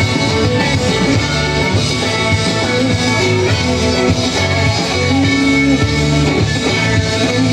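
Live country band playing, guitar to the fore over bass and drums, amplified through the stage PA.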